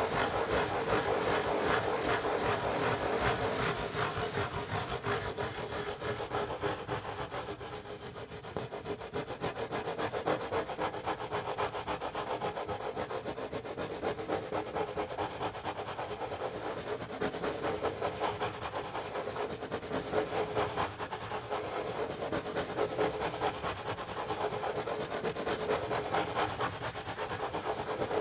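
Fingernails scratching in small, quick circles on the corrugated cardboard lid of a Pizza Hut pizza box: a continuous fast rasping scratch, briefly softer about eight seconds in.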